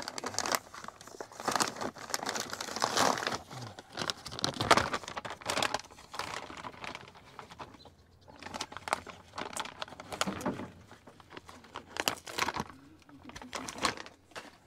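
Paper fast-food wrapping and bag crinkling and rustling in irregular bursts, busiest through the first half and coming in separate handlings later.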